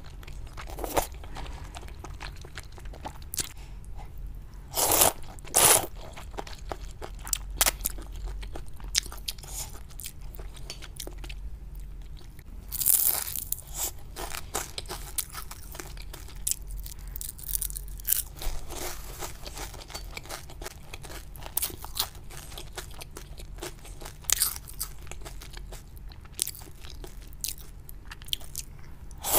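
Close-miked eating: steady chewing and biting with many short crunches, a few louder crunches standing out, from a person eating spicy luosifen rice noodles and crisp fried pieces.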